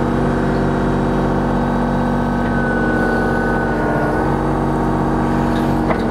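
Kubota KX033-4 mini excavator's diesel engine running steadily under hydraulic load as the bucket digs into hard soil and lifts it out, with a steady high whine over the engine and a few small clicks near the end.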